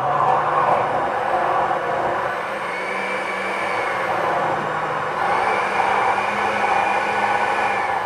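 Mallory Magnific 800 W blender motor running steadily, its blades churning thick carrot cake batter in the glass jar as flour is added. The motor's pitch rises slightly about two and a half seconds in.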